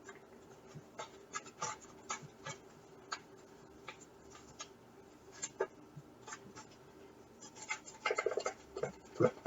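Paper cocoa-mix packet crinkling and rustling as it is handled, in scattered small crackles that grow busier near the end.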